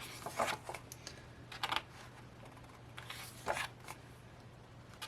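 Pages of a photo book being handled and turned: about three brief, soft paper rustles over a faint steady hum.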